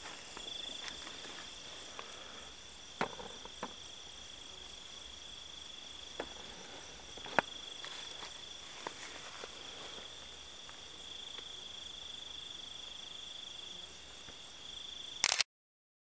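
Crickets trilling steadily at night, a high continuous chorus with short gaps in it. A few sharp clicks and rustles in the grass stand out, and the sound cuts out for a moment near the end.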